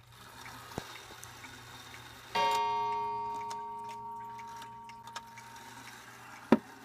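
1880s Ansonia mantle clock striking once on its bell or gong about two seconds in, the note ringing and slowly dying away, over faint ticking; a sharp click near the end.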